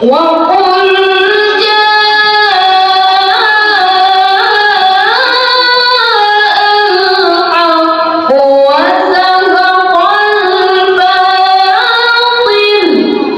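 A boy reciting the Quran in melodic tilawah style into a handheld microphone: long, held phrases with ornamented turns of pitch. There is a short break for breath about eight seconds in, and the voice stops just before the end.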